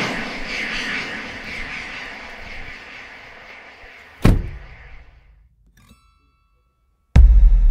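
A car boot lid slammed shut with one sharp thud about four seconds in, after a fading wash of noise. Near the end a sudden loud, deep boom starts and keeps rumbling.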